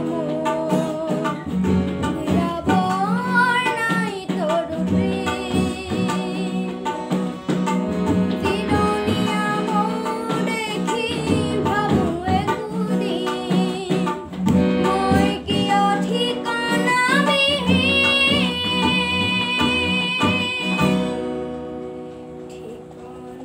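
A boy singing an Assamese song with wavering, gliding, ornamented notes over an instrumental backing. Near the end the singing stops and the music drops away.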